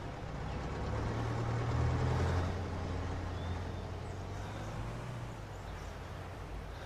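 Opel Blitz truck's engine running as the truck drives. It is a low hum that swells to its loudest about two seconds in and then slowly fades away.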